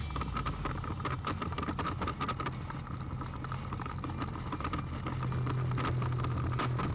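Harley-Davidson Ultra V-twin engine running steadily at cruising speed.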